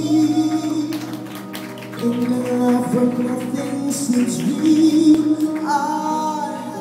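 Live music amplified through a sound system: a singer holding long notes with vibrato into a microphone over instrumental accompaniment.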